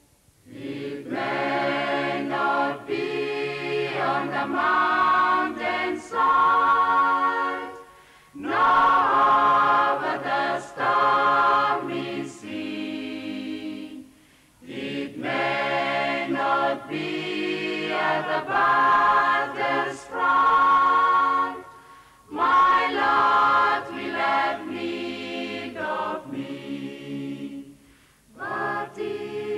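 A church choir singing a gospel hymn in several parts, in long phrases broken by short pauses.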